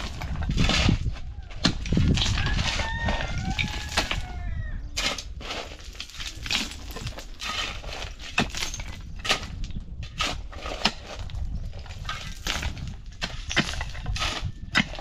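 A long-handled hoe and a rake strike and scrape stony soil, with a quick run of knocks and gravelly scrapes. A chicken clucks a few times about two to four seconds in.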